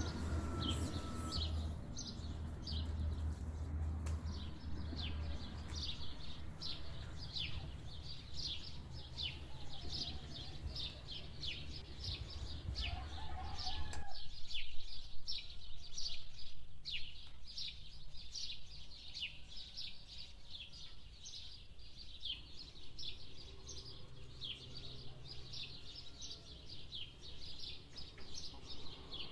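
A bird calling over and over, a short falling chirp repeated about two to three times a second. A low rumble sits under it for the first half and stops abruptly about fourteen seconds in.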